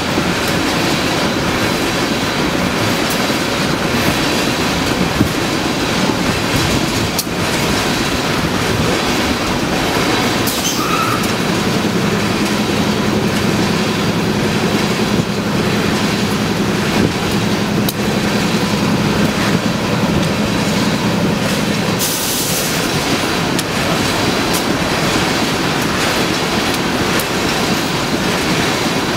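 A Canadian Pacific freight train rolling past at close range: a steady loud rumble and clatter of wheels on the rails. A low steady hum joins for about ten seconds in the middle.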